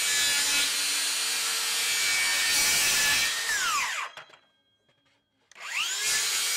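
DeWalt DCS578 60-volt Flexvolt brushless 7-1/4-inch circular saw running and cutting MDF, its motor whine steady. About three and a half seconds in the trigger is released and the whine falls away within a second as the electric brake stops the blade. After a short quiet the saw starts again near the end with a rising whine.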